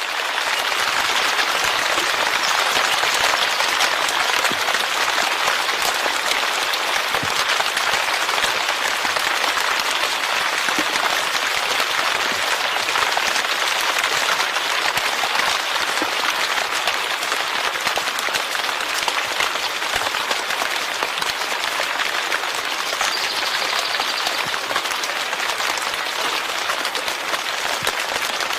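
Steady rain falling: a dense, even hiss of many drops that holds the same level throughout.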